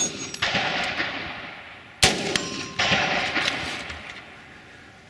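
Rifle shots, about five in all, with the loudest about two seconds in. Each shot trails a long echoing tail that fades out toward the end.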